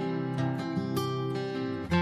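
Background music: acoustic guitar picking sustained chords.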